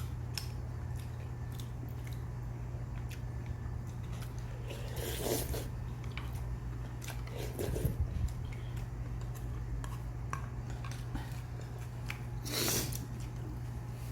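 A person eating goat stew: chewing and small clicks of eating throughout, with three louder noisy sounds about five, eight and twelve and a half seconds in. A steady low hum runs underneath.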